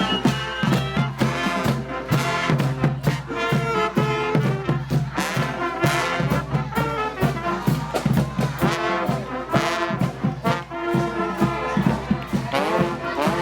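High school marching band playing, brass instruments carrying the tune over steady drum beats.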